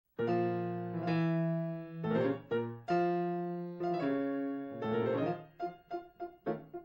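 Solo piano music: long held chords, then short repeated notes about four a second from around five and a half seconds in.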